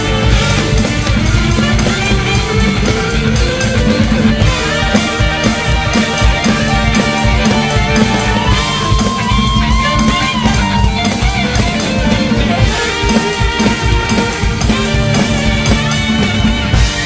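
Live rock band playing: electric guitars over a drum kit keeping a steady, driving beat.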